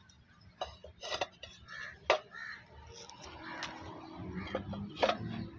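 Terracotta barrel roof tiles knocking and scraping against one another as they are lifted and set into place, with several sharp clinks, the loudest about two seconds in and near the end.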